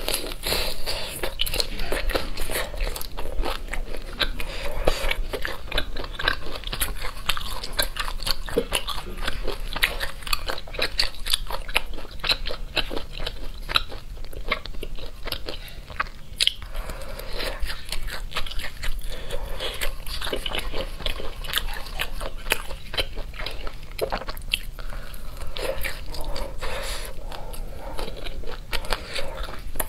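Close-miked biting and chewing of sweet-and-spicy Chinese sausage (lachang): a continuous run of irregular small clicks and crunches from the mouth.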